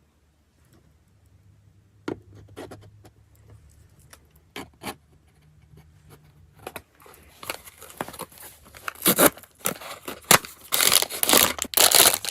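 Scattered clicks and taps of a small blind box being handled and opened, then from about seven seconds in, loud crinkling and tearing of the figure's packaging being torn open.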